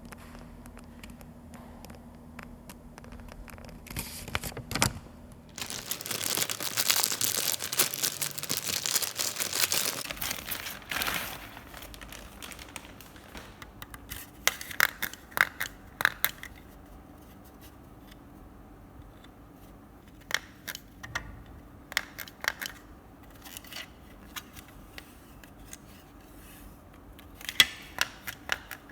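Hands handling small objects: several seconds of loud rustling or tearing about six seconds in, then scattered sharp clicks and taps.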